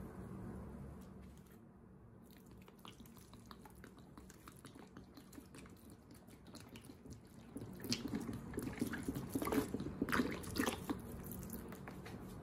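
Soapy rinse water poured from a plastic bottle onto a large foam block sponge in a plastic bowl, splashing and trickling into the sponge and the water. Faint crackles come first, and the liquid sound grows louder from about two-thirds of the way through.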